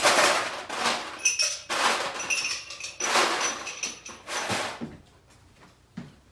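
Ice cubes rattling and clattering in four or five separate bursts, with a few short ringing clinks among them.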